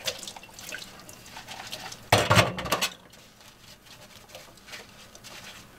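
Dishes being hand-washed in a stainless steel sink: small clinks and knocks of crockery, with a louder clatter a little after two seconds in.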